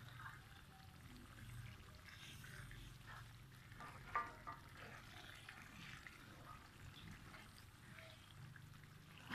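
Faint sizzle of chilli sambal cooking in a wok while a spatula stirs and scrapes through it, with one sharp knock of the spatula against the pan about four seconds in.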